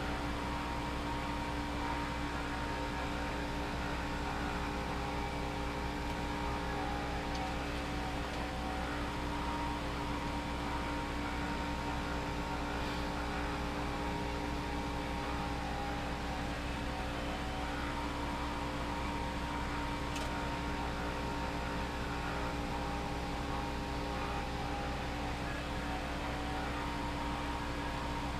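Steady mechanical hum of a motor running continuously, holding several even tones over a low rumble, with no change in pitch or level.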